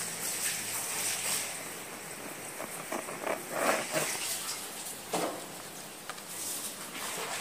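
A long knife sawing back and forth through the crust of a seeded wholemeal loaf: a dry, raspy scraping with some crackle, louder for a few strokes about halfway through and again a little later.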